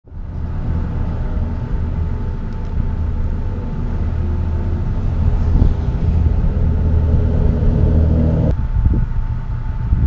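A motor vehicle's engine runs with a steady low hum over wind rumble on the microphone. The engine hum cuts off suddenly about eight and a half seconds in, leaving the wind rumble.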